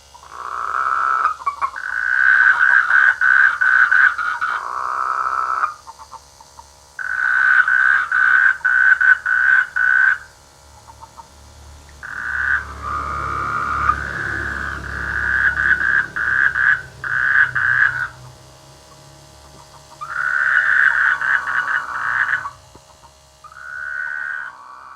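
Frogs giving mating calls: bouts of rapid, pulsed croaking a few seconds long, with short pauses between, and a low rumble beneath the bouts in the middle.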